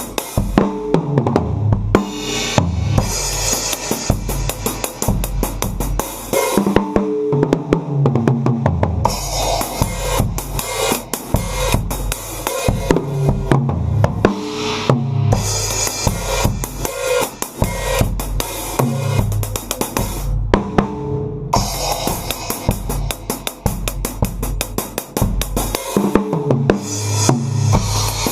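Unmiked acoustic drum kit played in a steady dance groove of bass drum, snare, hi-hat and cymbals, along with a recorded song carrying bass and melody. The cymbals drop out for short breaks several times.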